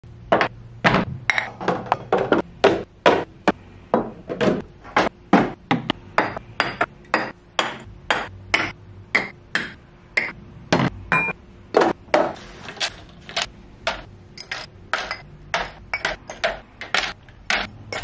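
Clear acrylic bins, glass jars and a bamboo stand being set down one after another on a marble tabletop: a quick string of sharp clacks and knocks, two or three a second, some with a short glassy ring.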